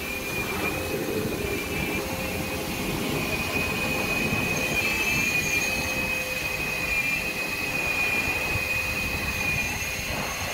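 Steady machine whine over a hiss from car-wash equipment: a high tone that wavers slightly in pitch, with a fainter lower hum beneath.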